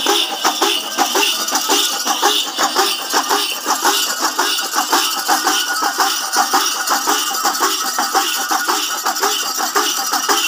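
Ilathalam, large brass hand cymbals, clashed in a fast steady rhythm by a group of temple players, their ringing layered over a lower repeating beat.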